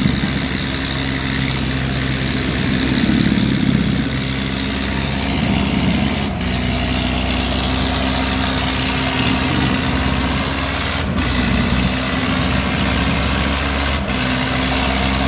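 The diesel engines of a Mahindra 585 and a Farmtrac 45 tractor running hard under full load as the two pull against each other in a tug-of-war, steady and loud throughout.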